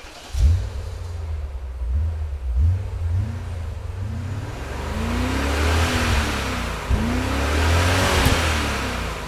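Car engine sound effect revving up and down several times, with a rush of noise swelling over it in the second half.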